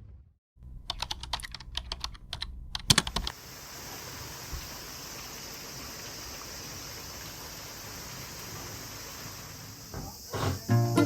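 A quick run of sharp clicks for about two and a half seconds, then a steady high-pitched chorus of insects, crickets, that continues until music comes in near the end.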